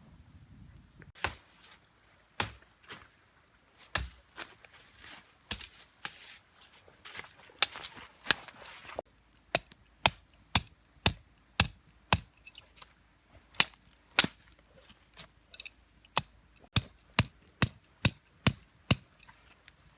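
A long run of sharp knocks or chopping strikes, irregularly spaced. They come sparsely at first and then about two a second through the second half, some with a brief high ring.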